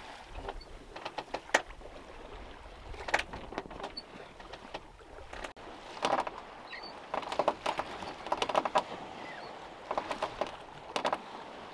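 Sea water splashing and slapping against a sailing yacht's hull as the bow moves through choppy waves, in irregular bursts every second or two over a steady rush of water. A low rumble of wind on the microphone runs through the first half.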